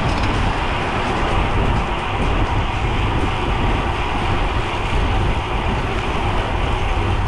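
Wind rushing over the microphone of a bicycle-mounted camera at a riding speed of about 20 mph, a steady, loud rumble strongest low down.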